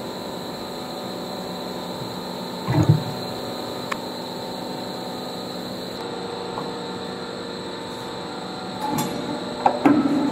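Extrusion blow moulding machine running with a steady hum and a steady high whine. A louder knock comes about three seconds in, and more knocks come near the end.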